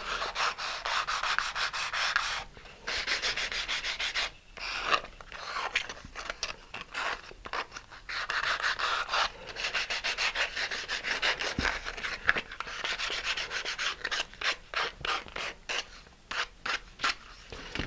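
Sandpaper on a sanding block rubbed back and forth in quick strokes along the cut edge of a vacuum-formed high-impact polystyrene canopy, smoothing the edge, with a few brief pauses.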